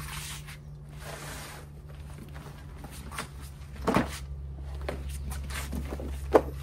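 Renogy 400-watt foldable solar panel blanket being unfolded and laid flat on a stone patio: soft rustling and handling of the fabric and panels, with a knock about four seconds in and a sharper knock near the end. A steady low hum runs underneath.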